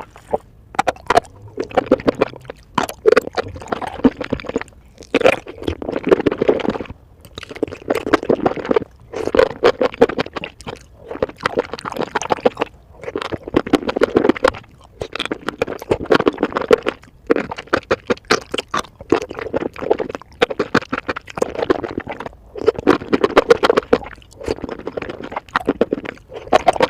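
Close-miked eating sounds sped up to four times normal speed: rapid crunching and chewing in bursts a second or two long, with short pauses between them.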